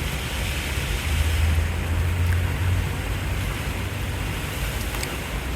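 Steady rain falling, an even hiss, with a low hum swelling for a couple of seconds from about a second in.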